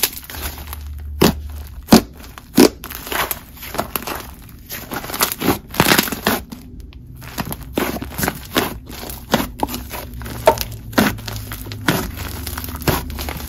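Hands squeezing, pressing and stretching a mixed juice slime (icy slime blended with clear slime), giving irregular sharp pops and sticky crackles as air pockets burst.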